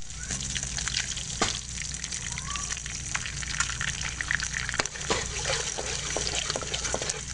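An egg frying in hot oil in a metal wok: steady sizzling with many small crackles and pops.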